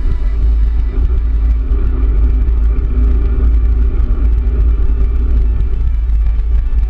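Wind buffeting the microphone of a camera on a moving bicycle: a steady, loud low rumble, with tyre noise on asphalt under it.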